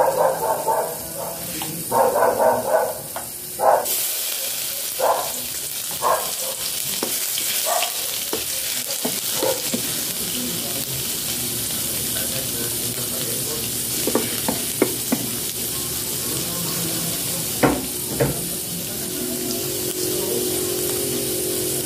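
Sliced vegetable strips frying in hot oil in a nonstick pot: a steady sizzle that starts about four seconds in. A wooden spoon knocks and scrapes against the pot a few times.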